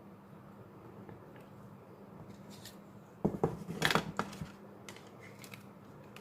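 Clicks and taps of small phone parts being handled and fitted together during an Oppo A5s reassembly, a quick cluster of them about three seconds in, with a few faint ticks after; otherwise faint room tone.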